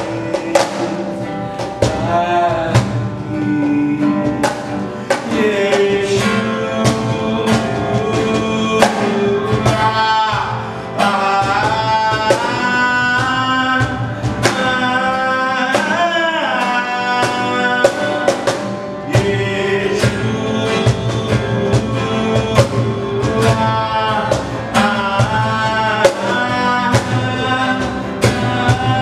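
A man singing a worship song while strumming an acoustic guitar in a steady rhythm.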